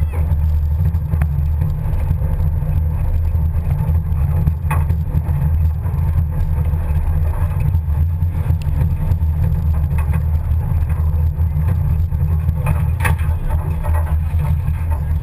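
Pinzgauer off-road vehicle driving along a woodland track, heard from its open rear bed: a steady low rumble of engine and drivetrain, with a few sharp knocks and rattles about a third of the way in and near the end.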